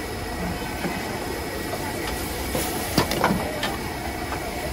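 Gas wok burner running with a steady rushing noise. About three seconds in, a metal spatula clangs once against the wok, followed by a few lighter clinks.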